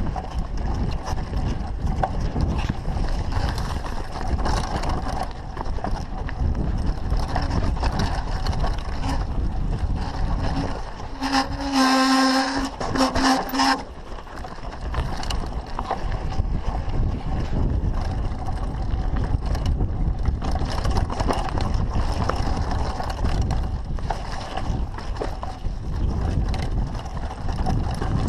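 Mountain bike descending fast on a dirt forest trail: wind rushes over the microphone while the bike rattles and clatters over roots and bumps. About halfway through, a pitched howl rings out for about two seconds.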